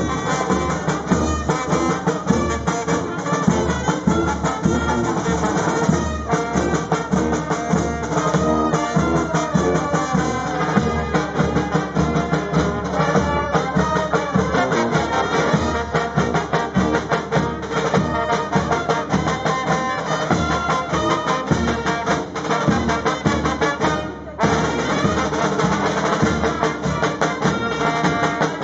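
Street brass band playing a tune: sousaphones and trumpets over bass drums with mounted cymbals beating a steady march rhythm.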